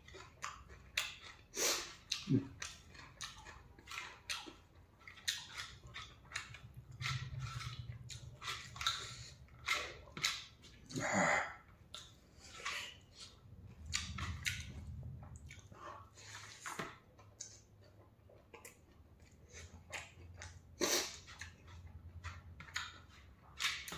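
Close-up eating sounds: irregular wet mouth clicks and smacks of someone chewing rice mixed with chamthong stew and singju salad, eaten by hand from a steel plate.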